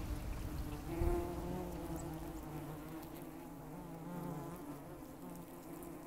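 Flying insects buzzing: several overlapping wing drones that waver in pitch, with a brief louder swell about a second in.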